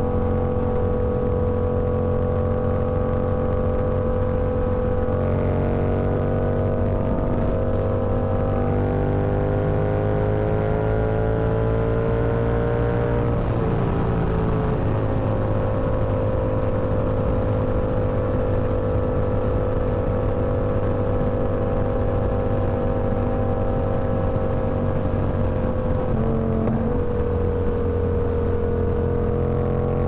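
Yamaha R7's 689 cc parallel-twin engine through a TOCE full-system exhaust, running under way at a fairly steady speed. Its pitch climbs gradually, drops back about halfway through, sinks slowly, and dips briefly near the end.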